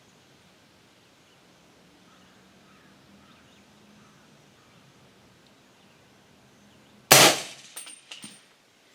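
A single suppressed rifle shot from a 300 AAC Blackout AR pistol firing subsonic 210-grain handloads, coming about seven seconds in after a stretch of quiet. It is a sharp crack with a short tail, followed by a couple of fainter clicks and a brief high ring.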